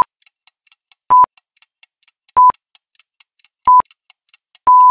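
Quiz countdown-timer sound effect: short high beeps at one steady pitch about every 1.2 seconds, with faint quick clock-like ticking between them, and a longer beep near the end as the countdown runs out.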